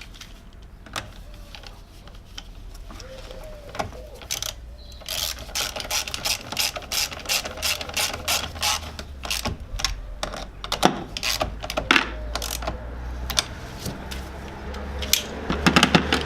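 Socket ratchet wrench clicking in quick runs while a battery terminal clamp is tightened. The clicking is sparse at first and becomes dense about five seconds in.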